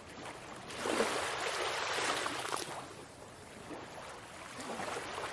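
Ocean waves washing onto a beach: a surge that swells about a second in and ebbs, then builds again near the end.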